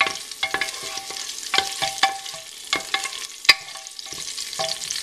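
Wooden spoon stirring spices in hot oil in a metal pressure cooker, knocking and scraping against the pot two or three times a second so that it rings briefly, over a light sizzle of the oil.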